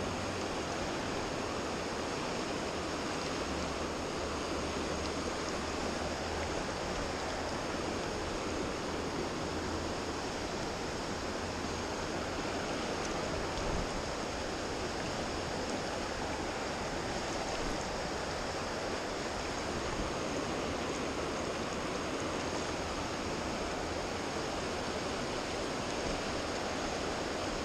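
River water rushing steadily over shallow riffles: an even, unbroken sound of flowing water.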